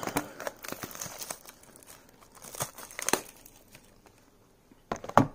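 Plastic shrink wrap being torn off a cardboard trading-card box, crinkling and tearing in several bursts, the loudest near the end.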